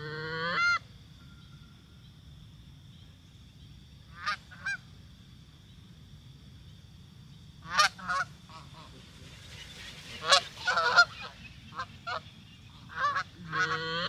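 Canada geese honking: scattered short honks, one near the start, a quick pair about four seconds in, then a busier run of honks and clucks from about eight to thirteen seconds. A steady high-pitched drone sits underneath.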